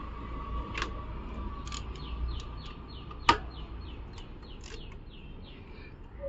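A bird calling in a quick series of short falling chirps, about three a second, over a faint steady hum. A single sharp click comes about three seconds in.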